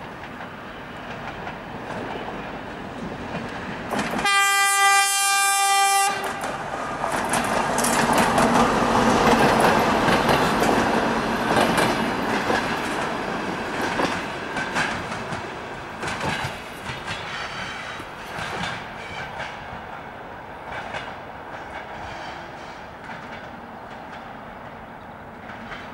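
TEP70BS diesel locomotive hauling a commuter train past. A few seconds in it sounds its horn in one steady note for about two seconds. The engine and wheels then build to a loud pass, with wheels clicking over the rail joints, and fade as the train moves away.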